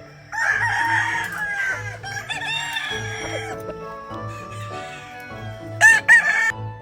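Gamefowl roosters crowing over background music: long overlapping crows during the first three seconds or so, then a short, louder crow near the end.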